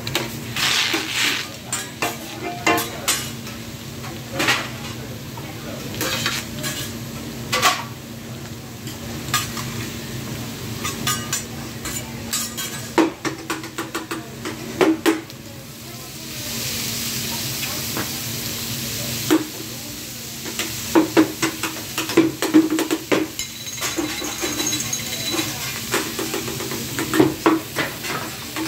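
Metal spatulas clinking and scraping on a hot steel teppanyaki griddle, the knocks coming in quick runs. About sixteen seconds in, a steady sizzle rises for about three seconds as food or oil hits the hot steel.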